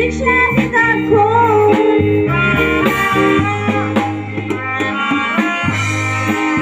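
Live band playing a tiatr song: steady bass notes and drums under a wavering melody line, with a singer's voice in the mix.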